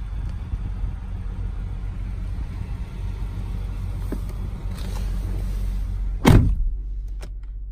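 Steady low rumble with a haze of outdoor noise, then about six seconds in one loud thump of the Lexus RX 350's driver's door shutting, after which the higher noise drops away and only a low hum is left.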